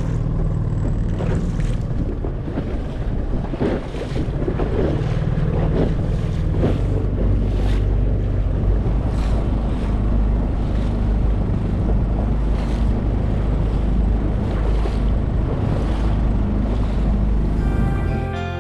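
Wind buffeting the microphone over water rushing and splashing along a sailing catamaran's hulls as it moves under way, with a splash every second or two.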